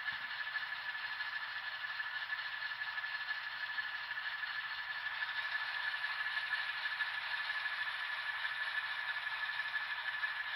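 N scale model freight train backing slowly along the track: a steady whir with a constant high whine running through it.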